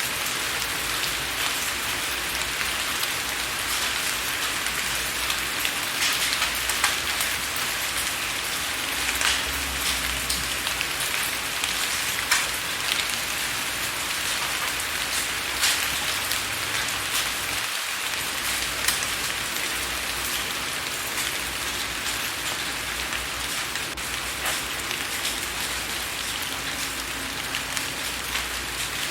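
Steady rain with a dense hiss and many individual drops tapping on window glass, a few of them sharper and louder.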